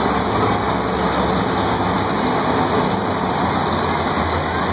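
Monster truck engine running steadily as the truck drives slowly, under a loud, even din of arena noise.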